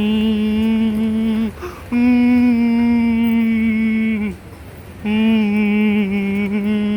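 A person's voice humming three long, steady held notes at about the same pitch, with short breaks between them.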